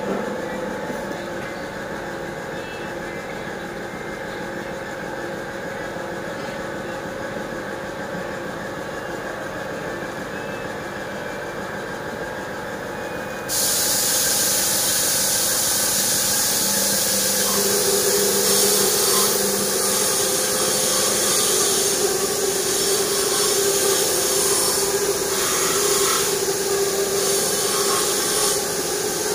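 Steady machine hum with a few held tones; about halfway through a loud, even hiss starts suddenly and keeps going over it.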